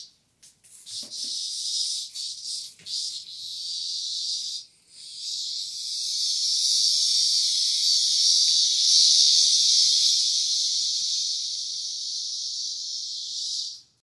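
A cicada buzzing, first in short broken bursts, then in one steady high buzz from about five seconds in that stops at the very end, with a few soft knocks early on.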